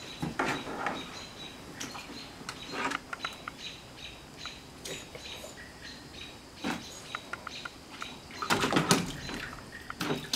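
Puppies splashing as they walk and scramble in shallow water in a plastic kiddie pool, with the loudest burst of splashing about eight and a half seconds in. High, short chirps repeat in the background.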